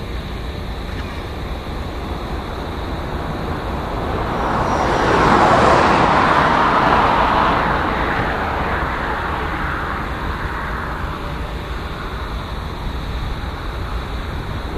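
A road vehicle passing at speed, its tyre and engine noise swelling to a peak a few seconds in and then fading away, over a steady low rumble.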